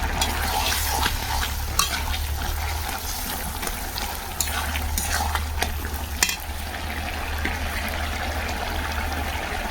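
Food sizzling in hot oil in a kadai as it is stirred, with the fried fish just added; the spatula clicks against the pan several times.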